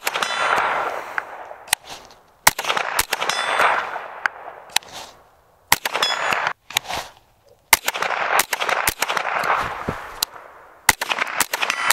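Smith & Wesson M&P 15-22 .22 LR rifle fired in quick semi-automatic strings, the sharp reports coming in clusters and each group trailing off in an echo. High metallic pings follow some of the shots: rounds striking a steel silhouette target at 50 yards.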